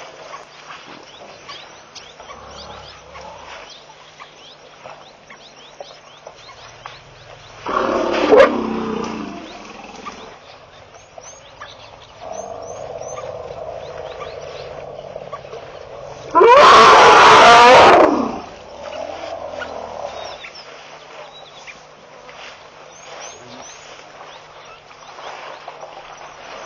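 African elephants calling at a waterhole: a loud falling call about eight seconds in, a steadier lower call a few seconds later, and a very loud blast of about a second and a half, the loudest sound, about sixteen seconds in.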